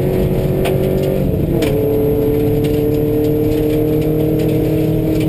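Subaru rally car's flat-four engine under hard throttle, heard from inside the cabin. Its pitch drops about a second and a half in, as on an upshift, then climbs slowly again. A couple of sharp knocks come from gravel on the car.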